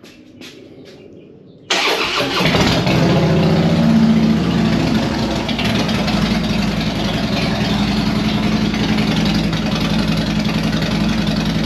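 Harley-Davidson Twin Cam V-twin starting about two seconds in, catching at once, then settling into a steady idle on a freshly loaded Vance & Hines FP3 tune.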